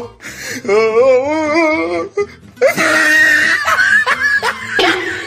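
A person laughing heartily: a quick run of wobbling 'ha-ha-ha' bursts, then a louder, breathier laugh from about two and a half seconds in.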